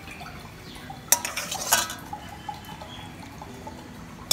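A steel ladle clinks twice against a metal kadhai as hot oil is ladled out of it after frying.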